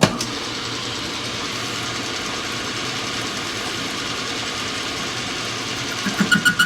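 A metal lathe switches on and runs steadily. About six seconds in, the parting blade meets the spinning sleeve and squeaks in a quick series of short pulses as it starts to cut.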